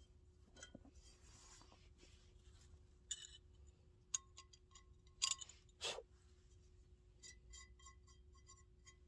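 Light metallic clicks and clinks as a frying pan is set against the pot supports of a small gas canister stove, with a duller knock about six seconds in and a quick run of short ringing ticks near the end.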